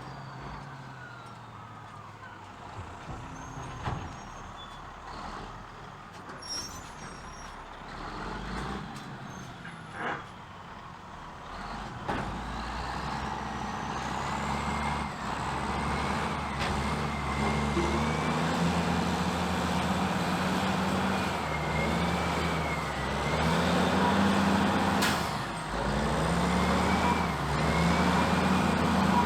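Caterpillar 627G twin-engine scraper's diesel engines running. They are quieter at first, with a couple of knocks, then grow louder about twelve seconds in, pulsing every couple of seconds with a wavering whine above.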